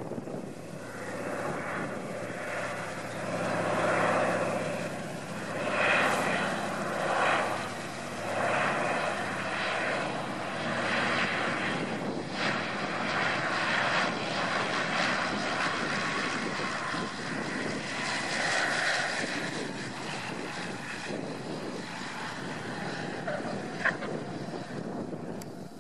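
Antonov An-2's nine-cylinder radial engine and propeller as the biplane flies in low and lands, its sound swelling and falling with several loud peaks. A single sharp click sounds near the end.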